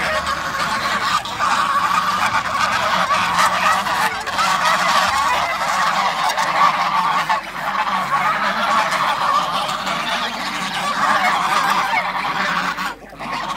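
A flock of domestic geese honking together, many birds at once in a continuous, overlapping chorus, with a brief lull about a second before the end.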